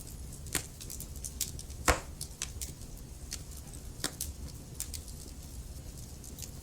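Logs burning in a fireplace, crackling: irregular sharp pops and snaps, the loudest about two seconds in, over a low steady rumble of the fire.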